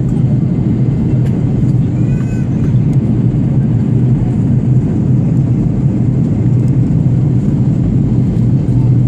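Airliner in flight heard from inside the cabin: a steady low drone of engines and rushing air.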